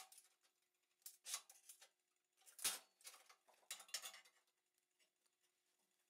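A handful of faint metallic clinks and taps, spread over the first four seconds: steel parts being handled against a steel welding table and bending jig.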